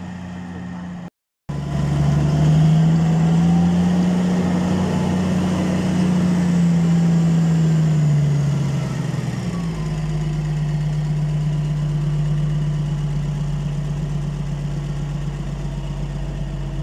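Diesel engine of a large wheel loader running loud as the machine drives carrying a marble block. The engine note holds higher for several seconds, then drops to a lower steady run about eight to nine seconds in.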